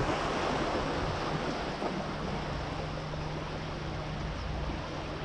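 Sea surf washing against a rocky shore, a steady rushing noise, with a faint low hum for a couple of seconds in the middle.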